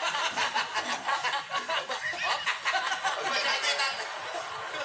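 TV variety-show audio playing through a smartphone's small speaker: people talking and laughing.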